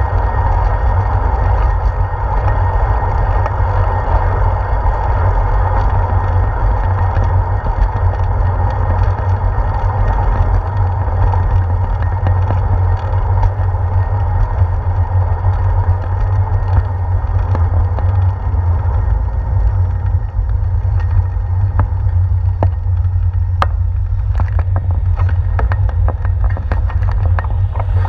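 Steady low wind rumble on a handlebar-mounted GoPro while riding a bicycle, with tyre hiss on a concrete path. From about two-thirds of the way through, a run of sharp clicks and knocks joins in.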